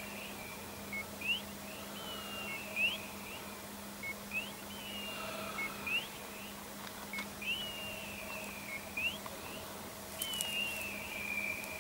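Dog's beeper collar in point mode, sounding the same electronic call over and over, about every one and a half seconds: a falling slur followed by a quick rising chirp. It signals that the dog has stopped and is holding point.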